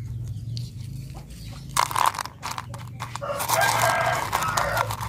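A rooster crows: a short call about two seconds in, then one long crow of about a second and a half, with a few faint clicks in between.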